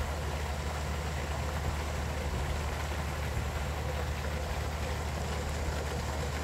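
Fountain jets splashing down onto a pond: a steady rush of falling water over a low rumble.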